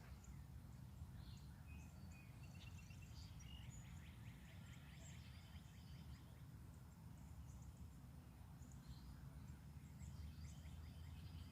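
Faint birdsong: several small birds chirping and twittering, with a quick trill a few seconds in, over a low steady background rumble.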